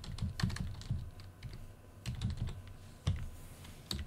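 Typing on a computer keyboard: short runs of quick keystrokes, with a pause of about a second near the middle.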